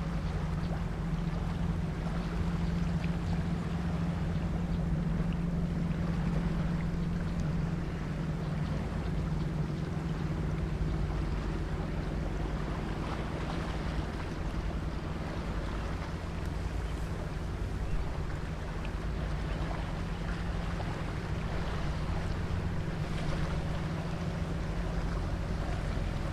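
Engine of a river sand-carrying boat running steadily with a low drone, under a broad hiss of wind and water.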